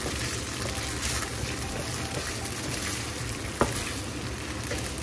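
Linguine and canned tuna sizzling in a nonstick frying pan while being stirred and tossed with a wooden spatula, with a single sharp knock about three and a half seconds in.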